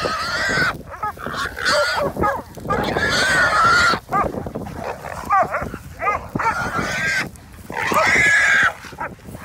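Wild hog squealing, a series of long, loud, shrill squeals with short breaks, as it is caught and held by catch dogs.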